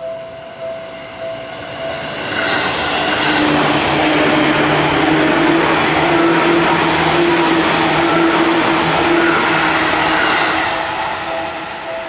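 A Seibu 2000 series electric train runs past close by at a level crossing, a loud steady rush with a low hum that builds about two seconds in and fades near the end. The crossing's warning bell dings over and over at the start and comes back through the fading noise near the end.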